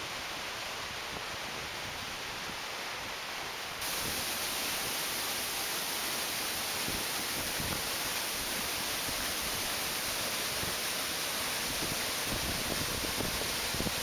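Waterfall rushing: a steady, even noise of falling water that becomes louder about four seconds in and then holds.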